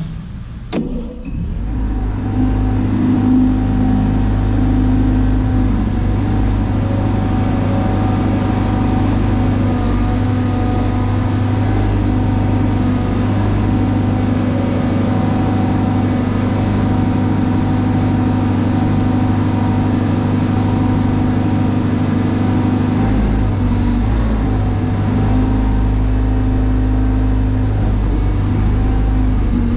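Broderson IC-35 carry deck crane engine, just started, running steadily, with the level settling about two seconds in. The hydraulic control levers are worked to lower the boom while it runs.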